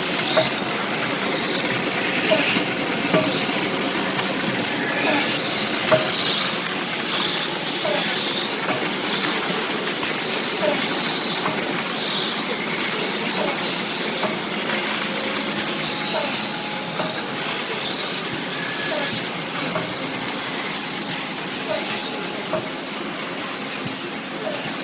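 Drinking-straw packing machine running steadily: a continuous mechanical whir and hiss with a short chirp repeating about once a second as it wraps bundles of straws in plastic film.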